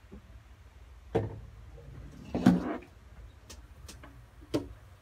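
Handling noise from someone moving about right next to the phone: a knock about a second in, a louder rustling thump around halfway, then a few sharp clicks and a knock near the end.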